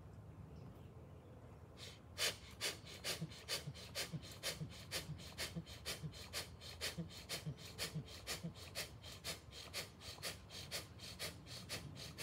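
A man breathing out forcefully in rapid, even bellows-style pranayama breaths (bhastrika/kapalabhati breath infusion), about three or four breaths a second. The breathing starts about two seconds in and keeps a steady rhythm.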